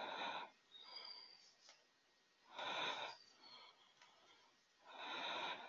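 A person breathing close to a microphone, three faint breaths about two and a half seconds apart.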